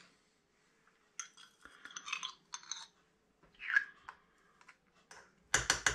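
Metal spoon clinking and scraping against a small glass jar and the tagine dish while oily sun-dried tomatoes are spooned out, a scatter of light taps and scrapes with a louder clatter of clicks near the end.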